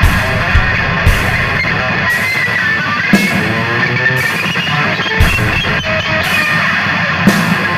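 Instrumental rock passage: electric guitar played over a drum kit, with a heavy drum hit about once a second.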